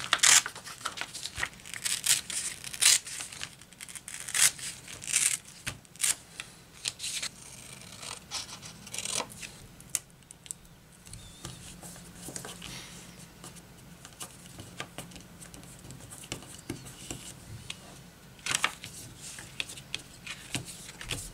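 White paper and cereal-box card being handled, folded and taped by hand: short bursts of crinkling, tearing and scraping, thickest in the first few seconds and again near the end, with a quieter stretch in between.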